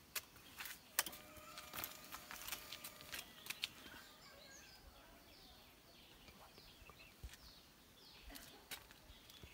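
Quiet outdoor ambience: a handful of sharp, irregular clicks in the first few seconds, then faint, short, high bird chirps over a low background hiss.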